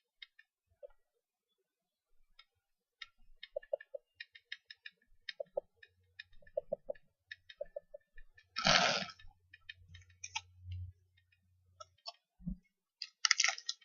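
Trading cards being handled and sorted: a scatter of small clicks and ticks from card edges, with a brief louder rustle about nine seconds in.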